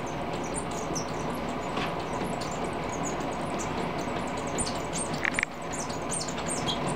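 A cat's claws scrabbling against a window screen: many light, irregular scratchy ticks over a steady hiss.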